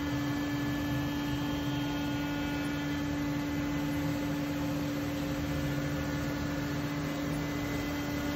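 CNC router spindle running with a steady whine as an O-flute upcut bit lightly trims the rough edge off a sheet of HDPE plastic.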